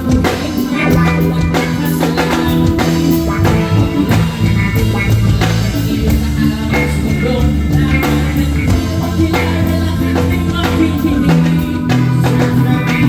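Live band playing amplified music through a PA: a drum kit keeping a steady beat under bass and guitar, with a singer.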